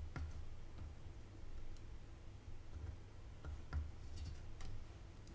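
Faint, scattered small clicks and taps as a soldering iron tip and solder wire work the joints of a power-supply circuit board, over a low steady hum.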